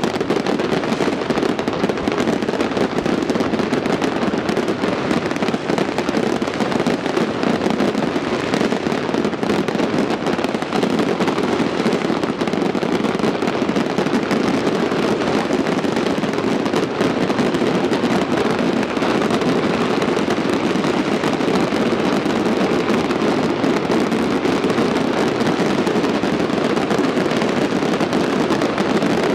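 Fireworks going off in a dense, continuous barrage: a constant rattle of pops and crackles at an even loudness, with no single bang standing out and no pause.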